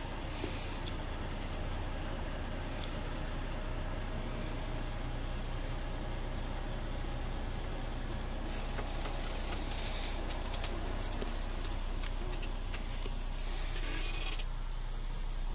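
Semi-truck diesel engine idling steadily, heard from inside the cab. From about halfway through until near the end, a stretch of crackling and rattling sits over it.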